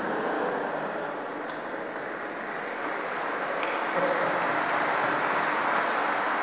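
A large audience applauding, a dense steady clapping that swells a little about four seconds in.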